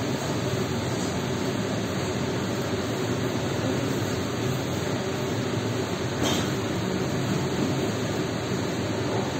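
Steady restaurant room background noise, an even rumbling hiss with no clear voices, and a faint tap about six seconds in.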